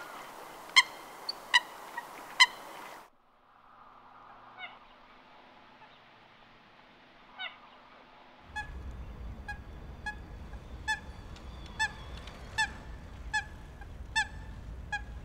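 Coots calling: short, sharp, single-note calls repeated about every half second to a second, in three spliced recordings. The middle recording is quieter and holds only two calls. In the last one, wind rumbles on the microphone.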